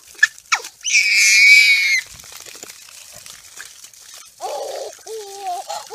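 A baby's voice: a long, high-pitched squeal about a second in, then lower wavering babbling near the end, while the baby plays with a running garden hose.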